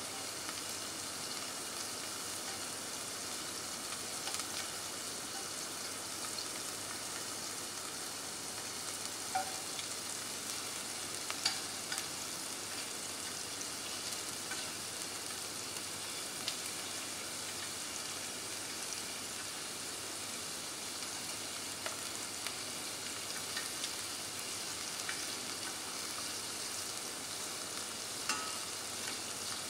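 Shrimp sizzling steadily in hot oil in a stainless steel sauté pan, with a few sharp clicks of metal tongs against the pan as the pieces are turned.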